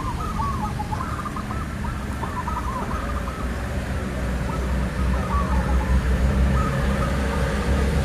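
Zebra dove (perkutut) cooing in runs of short, wavering notes, over a steady low rumble.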